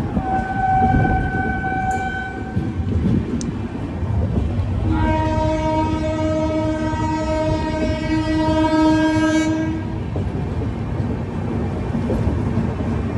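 Passenger train running with a steady rumble from wheels and coaches while the locomotive's air horn sounds twice. The first is a higher note of about two and a half seconds near the start. The second is a longer, lower and louder blast of about five seconds, beginning about five seconds in.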